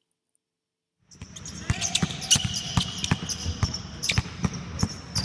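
Basketball dribbled hard on a hardwood gym floor, about two to three bounces a second, starting about a second in, with sneakers squeaking on the floor between bounces.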